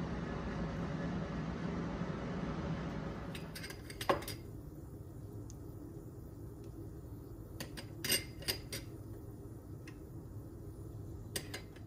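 Kitchenware clinking: sharp knocks of a utensil or measuring spoon against a dish or pan, one loud one about four seconds in, a cluster of several around eight seconds, and a pair near the end. A low steady hum fades out after the first few seconds.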